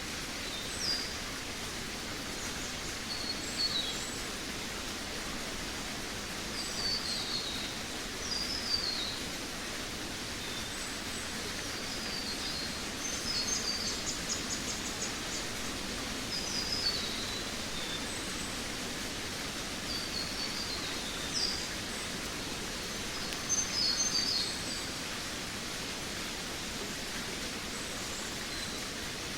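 Forest birds singing: short, high, falling phrases repeated every couple of seconds, with a quick trill about halfway through, over a steady background hiss of forest ambience.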